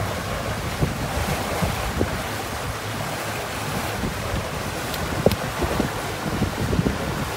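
Wind buffeting the microphone over the rush of water past a slow-moving electric gondola boat, whose motor makes no sound of its own. A couple of sharp clicks come about five seconds in.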